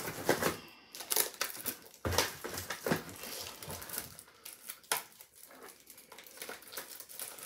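Plastic packaging of false-eyelash sets crinkling and rustling in short, irregular crackles as they are handled and sorted.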